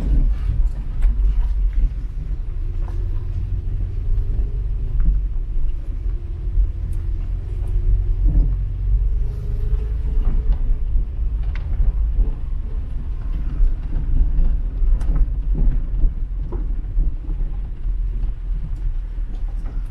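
A Skoda car running, with a heavy steady low rumble and a faint engine note that drifts a little up and down in pitch, plus scattered light knocks and rattles.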